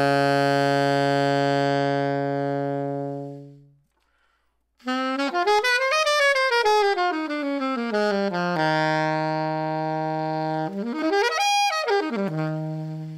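Alto saxophone played alone: a long note on its lowest, bottom-of-the-range pitch, held and fading away. After a short pause come quick runs that climb and fall, separated by held low notes. This is a horn that has gone seven years without servicing and probably has small leaks, yet it still plays the low note with no tuning issues.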